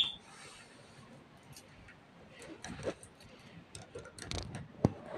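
Budgerigars in a cage. The tail of a short chirp ends right at the start, then comes a scattering of soft clicks and taps from beaks pecking at a seed stick and claws on the wire, with one sharper click near the end.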